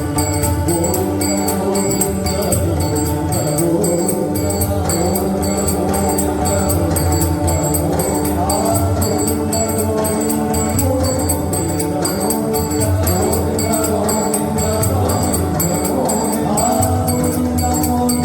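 Marathi devotional abhang being performed: pakhawaj drum and tabla with jingling metal percussion keeping a steady, even beat over sustained pitched accompaniment, with sung phrases rising in now and then.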